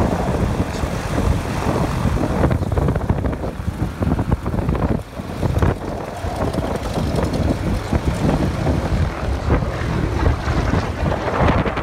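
Piston-engined propeller aircraft running, buried under heavy wind buffeting on the microphone, with a brief drop in level about five seconds in.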